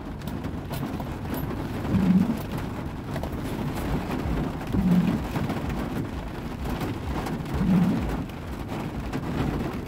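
Heavy rain falling on a vehicle's roof and windows, heard from inside the cabin as a steady patter of drops. A short low hum recurs about every three seconds.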